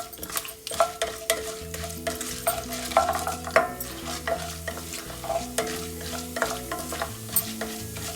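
A spoon stirring a tempering of mustard seeds, chana dal and urad dal frying in hot oil. The spoon clinks and scrapes against the pan over a steady sizzle.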